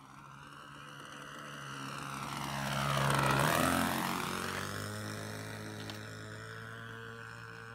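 Radio-controlled model plane's OS 40-class two-stroke engine at full throttle, making a low fly-by. It grows louder as it approaches, its pitch drops sharply as it passes about three and a half seconds in, and it fades as it flies away.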